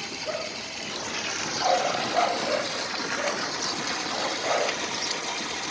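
A steady rushing noise, with a few short, slightly louder sounds about two seconds in and again a little before the end.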